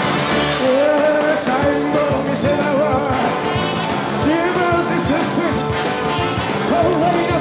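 Live rock and roll band playing, with a singer's voice carrying the melody over guitars and drums.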